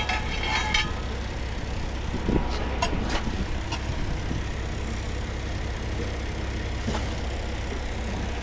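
A vehicle engine running with a steady low rumble, with a few short metal clinks and knocks from tire work about two to three seconds in and once more near the end.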